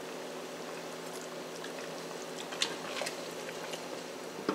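Faint sounds of tasting a spoonful of chicken broth: a few soft clicks of the spoon and mouth over a steady low kitchen hum.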